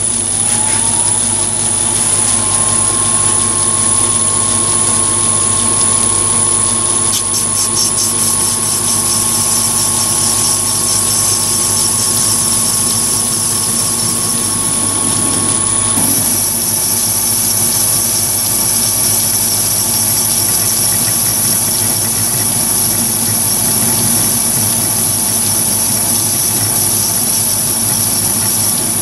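Chinese mini lathe spinning up and then running steadily at about 300 rpm, a motor and gear whine with a high steady tone, while a round carbide insert profile tool cuts grooves into a spinning brass bar. The pitch rises as the chuck comes up to speed in the first second, and the sound shifts once, about halfway through.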